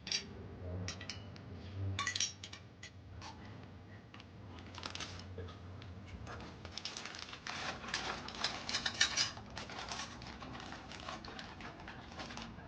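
Irregular light metallic clinks, taps and rattles, as of tools or small metal parts being handled, coming thickest in a cluster past the middle, over a low hum in the first half.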